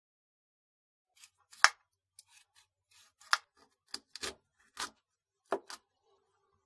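Kitchen knife cutting a peeled sweet potato on a wooden cutting board: about seven crisp, separate cuts at an uneven pace, starting about a second and a half in.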